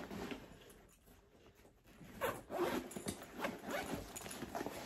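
Zipper of a Keababies backpack diaper bag being pulled open in a run of short pulls, starting about two seconds in.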